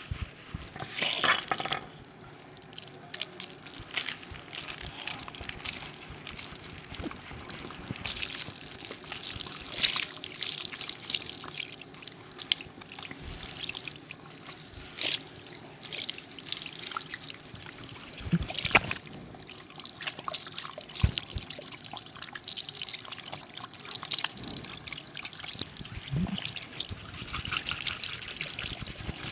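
Water pouring and trickling as soapy hair and face are rinsed at a barber's wash, with irregular splashes throughout.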